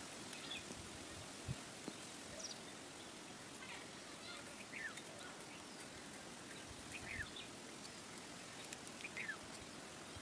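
Faint outdoor background with scattered short, high, falling bird chirps, and one light knock about a second and a half in.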